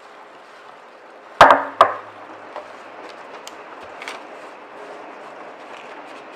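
Two sharp knocks close together about a second and a half in. Then soft rustling and light clicks as loose oat crumble is spread and pressed into a metal baking pan by gloved hands.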